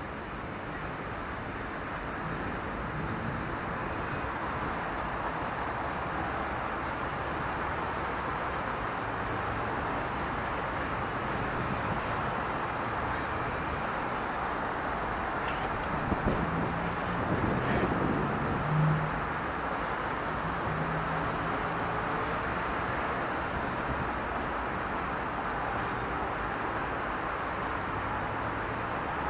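City street traffic: a steady wash of passing cars and tyre noise, with one vehicle passing closer and louder a little past halfway through.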